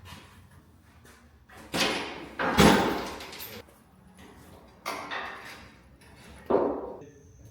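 A series of four heavy knocks or bangs, the loudest about two and a half seconds in, each ringing briefly before dying away.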